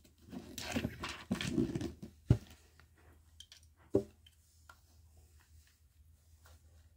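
Paper pages of a LEGO instruction booklet rustling as a page is turned, followed by two sharp taps about a second and a half apart.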